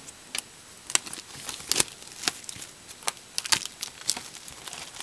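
Plastic shrink wrap being torn and peeled off a cardboard trading-card hobby box, crinkling in quick, irregular crackles.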